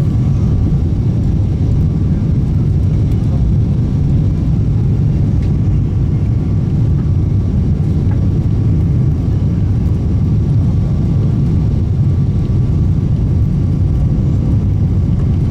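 Steady cabin noise inside a Boeing 777-300ER airliner: the low, even rumble of its GE90 engines and the airflow over the fuselage, with a faint steady tone above it.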